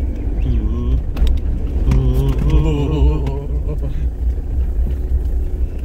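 Steady low rumble of a camper van's engine and tyres, heard from inside the cabin while driving on a rough, rocky road, with a few sharp knocks about a second in.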